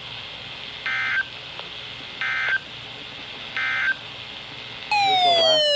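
Three short bursts of Emergency Alert System data tones, about 1.4 seconds apart: the end-of-message code that closes a weather radio warning broadcast. Near the end a louder tone slides steadily down in pitch.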